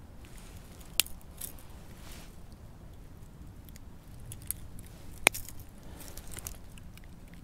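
Fishing pliers clicking and ticking against a hook while it is worked out of a pickerel's mouth, with two sharp clicks, about a second in and about five seconds in, and light rustling of handling between.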